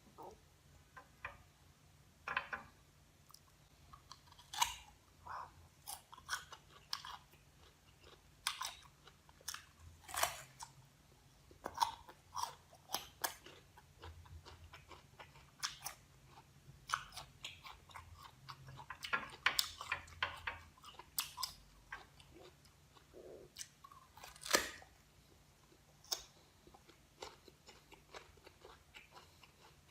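Close-miked crunchy chewing and biting of a firm green guava, with irregular crisp crackles as the fruit is bitten and chewed.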